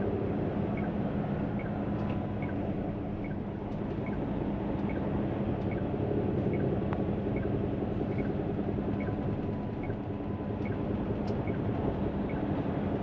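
Hino truck's diesel engine running steadily at crawling speed, heard from inside the cab. Over it the turn-signal indicator ticks evenly, about two to two and a half ticks a second: the driver is signalling to merge into the next lane in slow traffic.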